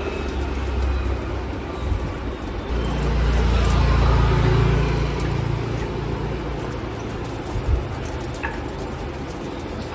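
Low rumble of road traffic, swelling about three seconds in and easing off after five, with a brief knock near the end.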